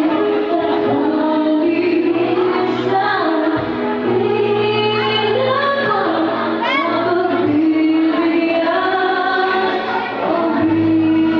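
A woman singing a slow ballad into a microphone over musical accompaniment, holding long notes with pitch glides between them.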